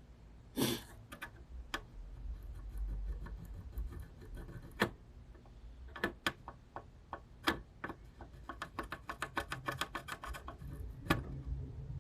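Irregular small clicks and taps of hand tools on the console's hard parts, with a short rub near the start and a quicker run of clicking in the second half.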